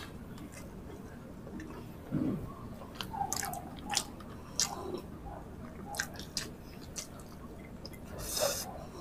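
Close-up mouth sounds of people chewing mouthfuls of tocino and rice: wet smacks and scattered short clicks, some louder than others.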